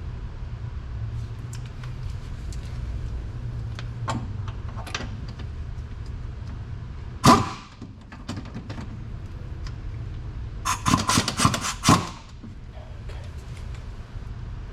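Metal tools knocking against suspension parts during bolt work: scattered light clicks, one loud sharp clank about seven seconds in, and a quick run of about ten sharp clacks near the end, over a steady low hum.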